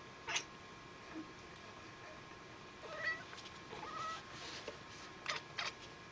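A domestic cat chirping: two short, pitched chirps about three and four seconds in. Cats make this call when watching birds. A few short, sharp clicks come near the start and near the end.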